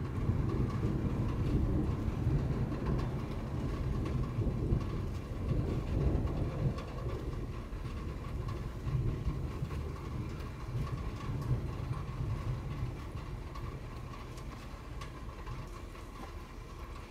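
A low, uneven rumble that slowly fades, with a faint steady high tone above it.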